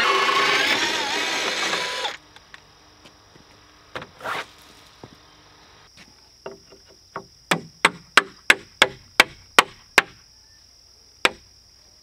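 Power drill with a long bit boring through a timber-frame joint, whining under load and stopping about two seconds in. Then a hammer drives a wooden peg into the drilled joint with about ten sharp blows, roughly three a second, and one more blow near the end.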